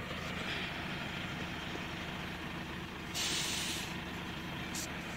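Telehandler's diesel engine running steadily at idle, with a short hiss a little after three seconds in.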